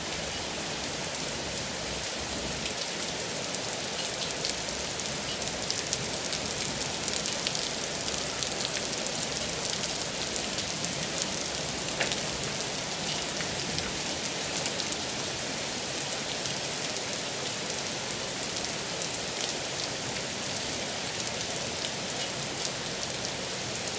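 Heavy rain pouring steadily, with many sharp ticks of drops striking nearby surfaces.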